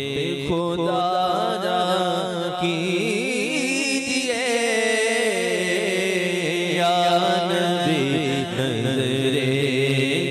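A man sings a naat, an Urdu devotional poem, solo into a microphone. He holds long, wavering, ornamented notes over a steady low drone.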